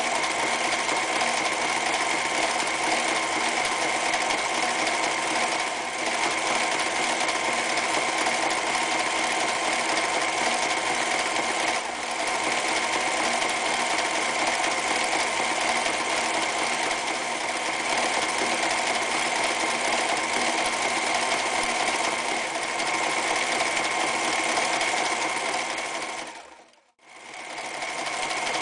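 A Frister + Rossmann 1080 electric sewing machine running steadily at speed, sewing decorative stitches. The sound cuts out briefly near the end, then resumes.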